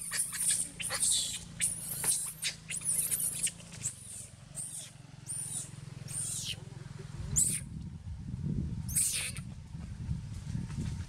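Macaques squealing: a dozen or so short, very high-pitched squeaks and shrieks, packed closely in the first four seconds and more spaced out after, over a low steady rumble.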